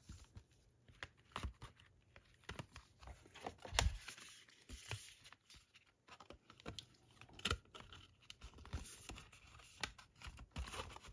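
Faint handling noise of card and paper packaging: scattered light clicks, taps and rustles as glossy photo cards are slid out of a card sleeve and handled.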